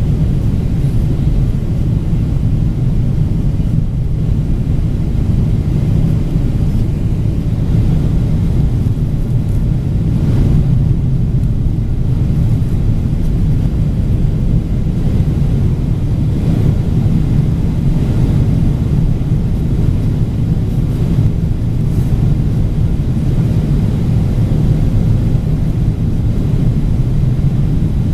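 Jet airliner cabin noise during the descent to land: a steady, loud, low drone of engines and airflow heard from inside the passenger cabin.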